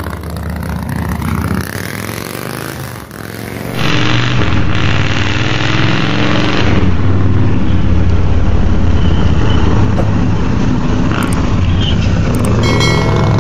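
Motorcycle engine running as the ape-hanger cruiser rides by, its pitch sliding in the first few seconds. About four seconds in it gives way to a louder, steadier motorcycle engine running close by.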